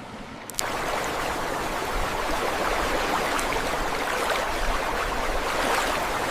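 A steady rush of water begins suddenly about half a second in and holds evenly.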